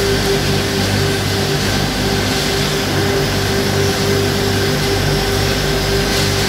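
Shot blasting line and its monorail conveyor running, giving a steady industrial drone with a constant tone and a pulsing low hum.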